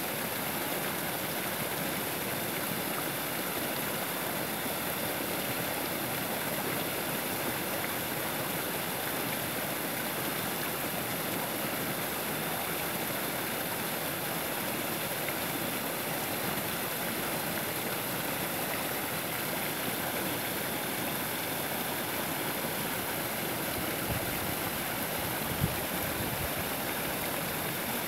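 Small woodland waterfall: creek water pouring steadily over a log-and-brush dam and splashing into a rocky pool. There is a short knock near the end.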